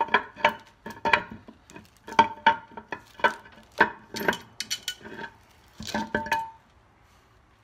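Steel cluster gear of a 1953 Dodge pickup's three-speed transmission clinking against the case as it is worked out by hand, with loose needle bearings spilling from it. A quick run of metallic clinks with a ringing tone that stops about six and a half seconds in.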